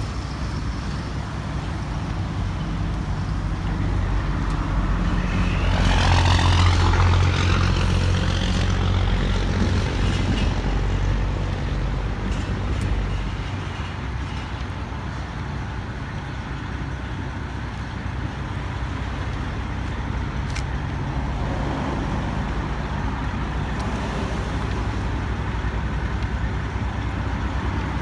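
A steady low rumble like engine or road traffic, swelling louder for a few seconds about a quarter of the way in before settling back.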